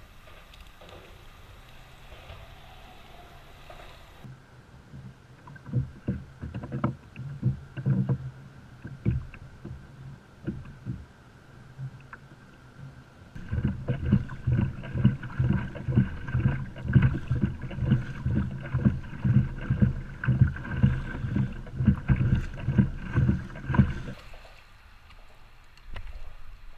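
Kayak on choppy water, its hull taking quick, regular low thumps, about two to three a second. They start faint and patchy a few seconds in, grow louder and steadier in the middle, and stop near the end.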